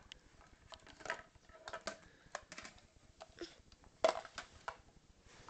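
Hard plastic toy pieces of a Happyland jungle tree playset clicking and knocking as a toddler handles them, with a louder knock about four seconds in.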